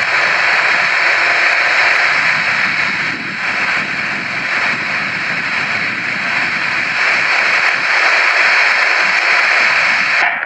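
Boeing 737-800's CFM56-7B jet engines on final approach: a steady, loud rushing noise with a high whine over it. It cuts off suddenly at the very end.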